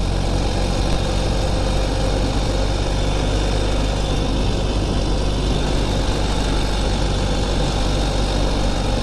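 2021 Ural Gear Up sidecar motorcycle's air-cooled boxer twin running at a steady cruise, its engine note unchanging, under a rush of wind and road noise.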